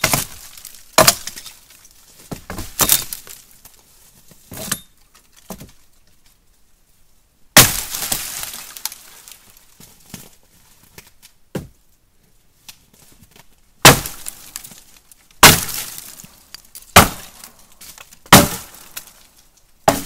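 Dry dead wood from a fallen tree being broken up for firewood: about ten sharp snaps and cracks at irregular intervals, some trailing off in a splintering crackle.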